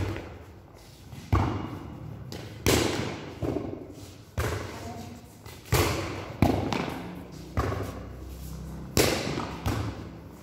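A volleyball being struck again and again by players' forearms and hands in a passing rally: about eight sharp thuds roughly a second apart, each ringing on in the echo of a large hall.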